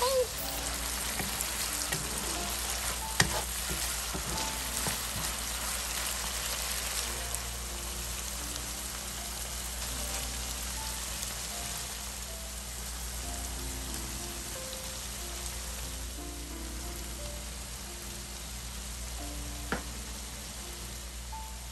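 Ground beef sizzling steadily as it fries in a nonstick pan, with two sharp clicks, one about three seconds in and one near the end.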